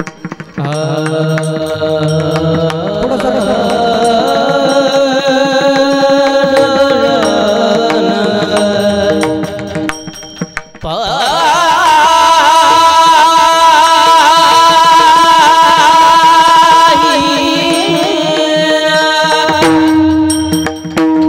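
Marathi devotional abhang singing, a voice holding long, wavering notes over instrumental accompaniment. About ten seconds in the voice breaks off briefly, then comes back louder and higher.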